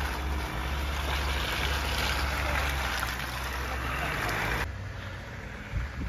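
4WD vehicle driving on a snowy mountain track: a steady low engine and road rumble with a hiss of tyre and wind noise, which cuts off suddenly to a quieter sound about two-thirds of the way through.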